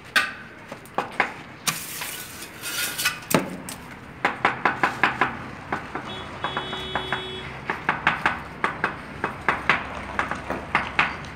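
A trowel tapping on ceramic wall tiles to bed them into the adhesive: sharp clinks in quick runs of several taps a second. A scraping sweep comes about two seconds in.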